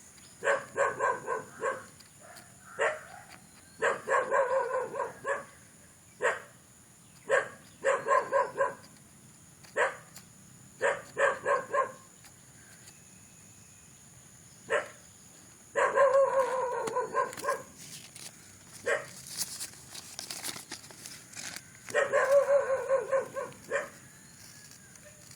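A dog barking repeatedly, sometimes single barks and sometimes quick runs of several barks, with short pauses between.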